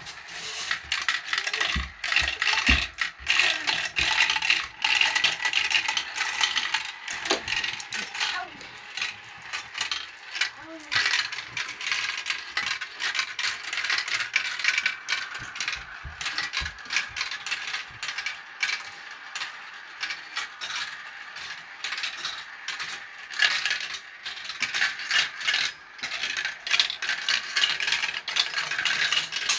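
Many glass marbles clattering down a plastic marble run: a dense, continuous rattle of rapid clicks as they spin round a funnel bowl and drop through the plastic tubes and tracks.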